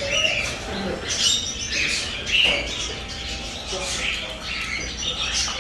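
Many shop birds calling together: overlapping high chirps and squawks, constant and irregular.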